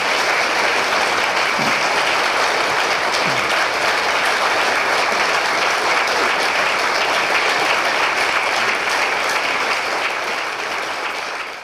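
Audience applauding, many hands clapping in a steady, dense wash that dies away near the end.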